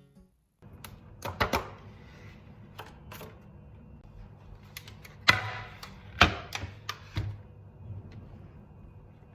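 A few sharp clicks and knocks over a low steady room hum, the loudest about a second and a half, five and six seconds in.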